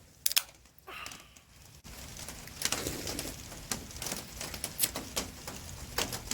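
Rain pattering and dripping on a gazebo shelter, a dense run of sharp irregular taps from about two seconds in. A single sharp click comes just after the start, and a brief call about a second in.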